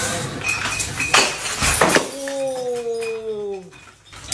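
Glass bottles in hanging crates clinking and smashing in a few sharp knocks, followed by a long whine that falls slowly in pitch for about a second and a half.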